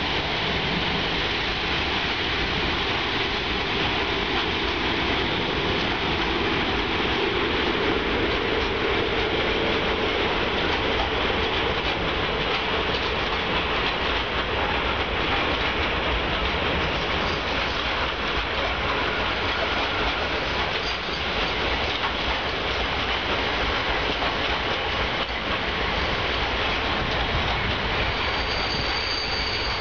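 Long loaded freight train of open wagons, hauled by an ET22 electric locomotive, rolling past: a steady noise of wagon wheels running on the rails that keeps going without a break.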